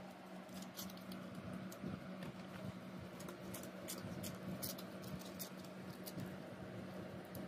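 Faint soft patter and small sharp clicks of fingers packing a rice-and-herb stuffing into a hollowed zucchini, over a low steady hum.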